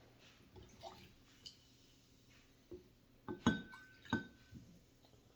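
Glassware clinking: a few light knocks, then three sharp clinks in the second half, two of them ringing briefly with a clear tone.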